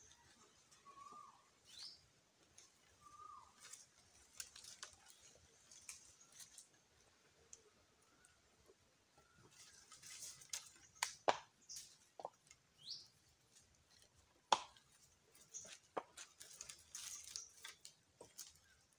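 Scattered light clicks and knocks of wooden sticks being handled and shifted as a rough stick table is lashed together with string. A few short bird chirps come in, two near the start and one later.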